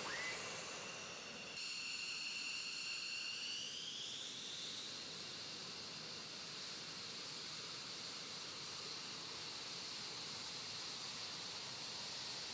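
F-15E Strike Eagle's twin jet engines whining at taxi power over a steady hiss; the whine rises in pitch a few seconds in as the engines spool up, then holds.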